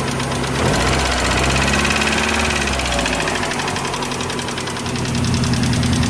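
1995 Mazda Miata 1.8-litre DOHC four-cylinder idling with a fast, even ticking knock in time with the engine, which the owner takes for either severe lifter tick or rod knock.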